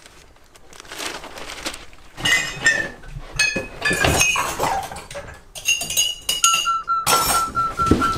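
Dishes and glasses clinking and knocking together in a kitchen sink during washing-up, with short ringing tones. Near the end a rapidly pulsing high tone starts, about five pulses a second.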